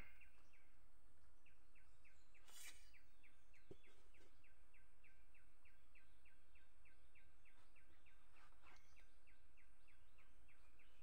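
Quiet outdoor ambience with a high chirp repeating evenly, about three times a second, from a bird or insect. A brief soft rustle comes about two and a half seconds in.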